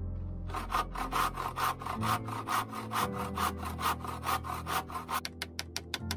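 Hand saw cutting through wood with quick back-and-forth strokes, about four a second. The strokes turn sharper and quicker near the end.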